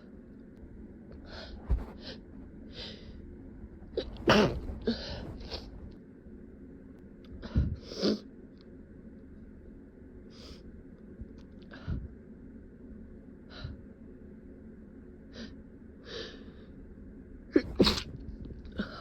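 A person's stifled sneezes, held back to short muffled bursts, about half a dozen spread out with quick breathy catches between them. The sharpest come about four seconds in and near the end.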